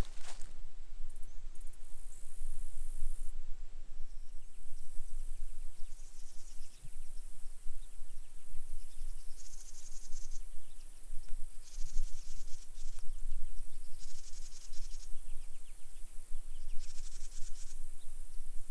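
Insects such as crickets or katydids calling in a marsh: a steady high-pitched drone, with pulsing chirring bursts about a second long every second or two. A low rumble, likely wind or handling noise on the microphone, runs underneath.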